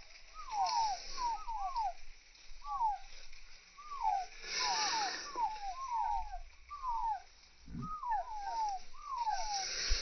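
Chicken chicks peeping over and over, short rising-and-falling chirps about two a second, with a short burst of noise about halfway through.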